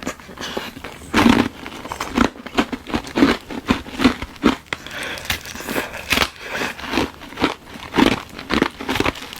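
Glove-shaped ice of frozen tartary buckwheat tea being bitten and chewed: a run of sharp, irregular crunches, a couple to a few each second.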